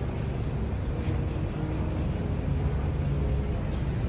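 Street traffic: a line of cars running slowly along the road, a steady low rumble with no sharp events.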